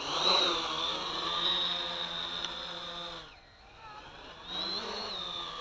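XK X350 quadcopter's motors and propellers spinning up with a rising whine and running steadily, then winding down a little past three seconds in and spinning up again about a second later.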